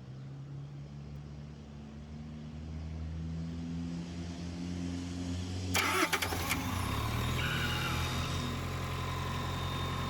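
Diesel engine of a 2023 Tata bus starting and running, with a sudden rattling clatter about six seconds in and a steady whine joining after it. This is the AC engine that keeps cutting out on its own with an EP fault, traced to high head pressure from failed condenser fans.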